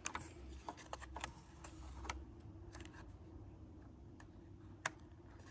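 Faint clicks and crackles of thin cereal-box cardboard being handled and folded by hand, with one sharper click near the end. A faint steady hum runs underneath.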